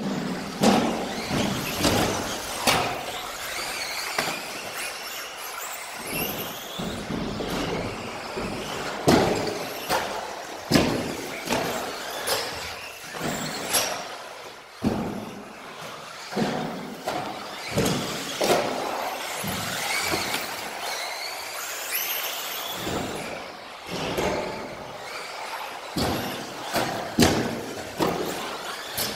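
Radio-controlled electric off-road cars running on a carpet track: motor whines rising and falling as they accelerate and brake, with repeated sharp knocks as they land and hit the track.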